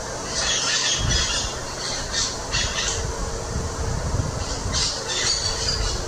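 Amazon parrots squawking in harsh bursts: a cluster of squawks in the first second, several more over the next two seconds, and another cluster near the end, over a low rumble.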